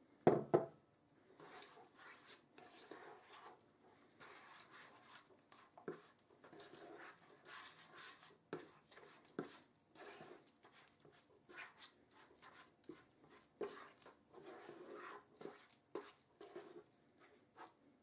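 Slotted spatula stirring a thick curry paste of spices, flour and stock in a saucepan: faint, irregular wet squelching and scraping with occasional sharp clicks of the spatula against the pan.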